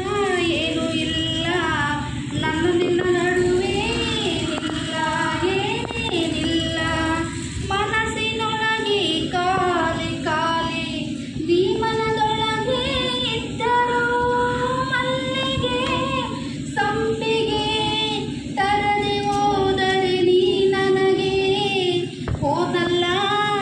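A woman singing a popular song, a melody with long held notes, over a steady low hum.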